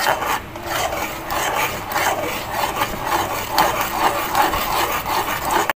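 A stirring spoon scraping and rubbing against a metal pot through thick custard as it cooks down and thickens. The sound cuts off abruptly just before the end.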